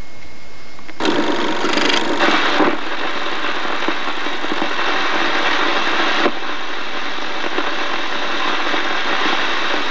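Film projector starting up about a second in and then running with a steady whirring, clattering noise, loudest for the first couple of seconds.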